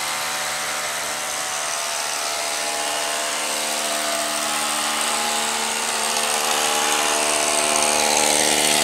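Power drill boring an anchor hole into the concrete shop floor, running steadily and getting slightly louder toward the end.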